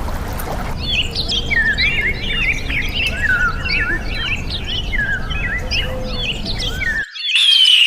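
Many small birds chirping together in quick, overlapping calls, most of them falling in pitch, over a steady low rumble. About seven seconds in the sound cuts abruptly to a louder, cleaner run of chirps without the rumble.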